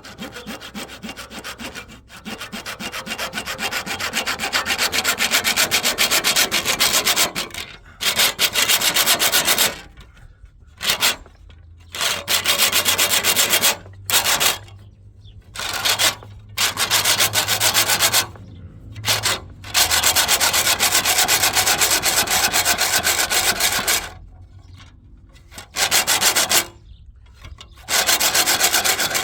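A power tool cutting or sanding against a hard material, with a fast scratchy rasp that runs in bursts of one to four seconds separated by short stops.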